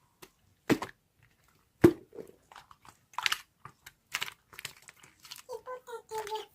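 A series of separate sharp clicks and knocks, like small hard objects being handled and set down, the loudest about two seconds in; near the end a child starts humming in short held notes.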